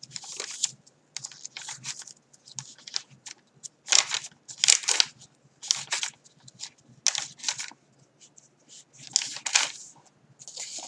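Paper pages of a handmade journal rustling and swishing as they are turned and smoothed by hand, in a run of short bursts. The loudest come about four seconds in and again about nine seconds in.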